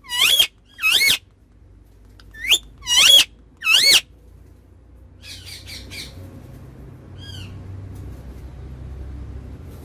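Pet parrot squawking: five loud, warbling calls in the first four seconds, then a few soft chirps. A low car rumble builds underneath in the second half.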